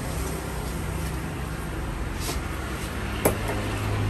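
A knife chopping fish on a wooden log block: one sharp knock about three seconds in, over a steady low hum that grows louder near the end.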